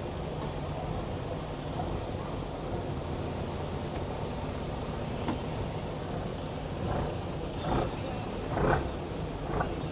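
Fishing boat's engine running steadily at an even speed.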